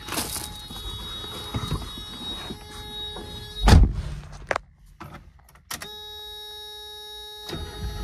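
Car door pulled shut with one loud thunk about four seconds in, followed by a quiet cabin. Then a click and a steady electronic warning tone as the ignition is switched on, with the 1990 Mazda Miata's starter beginning to crank the cold engine at the very end.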